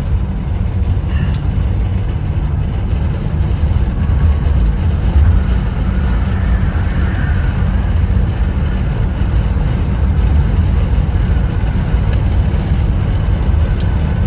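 Steady low rumble of an older car's engine and road noise heard from inside the cabin while driving, with a few faint ticks.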